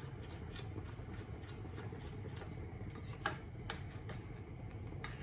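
A spoon stirring thin gram-flour batter in a glass bowl, tapping the glass in faint, irregular clicks about once or twice a second, over a low steady hum.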